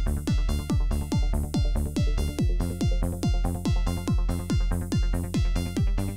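Electronic dance music with a kick drum on every beat, a little over two beats a second, under layered synth notes.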